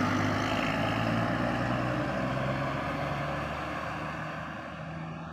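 A heavy road vehicle's engine and tyres run steadily past and then fade as it moves away, with its low engine tone audible throughout.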